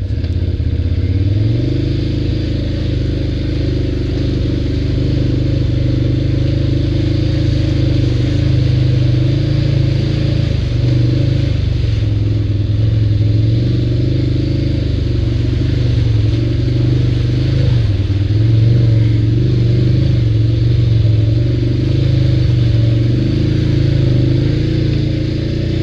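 ATV engine running under way, its pitch stepping up about a second and a half in and then holding fairly steady with small rises and dips as the throttle shifts.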